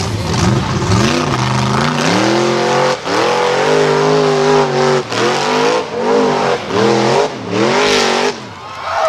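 Engine of an off-road vehicle being revved hard, its pitch climbing and falling again and again, with brief lifts off the throttle every second or so.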